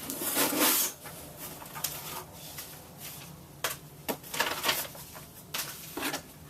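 Rustling of packaging and its contents being handled during an unboxing, in irregular bursts, the busiest in the first second and again from about three and a half seconds in.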